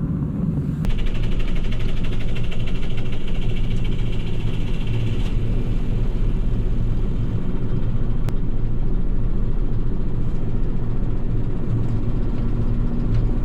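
Cold diesel tractor engine cranked by its electric starter, which whines from about a second in until it drops out around five seconds in. The engine then keeps running with a steady low rumble, weak after a hard cold-weather start on a low battery.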